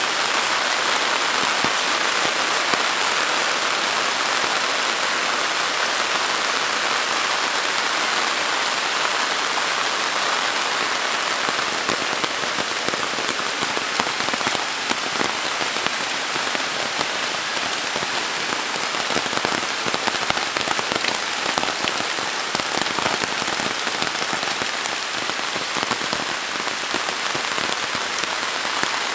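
Heavy rain falling steadily on dense foliage and a wet road: a loud, even hiss with many single drop hits through it.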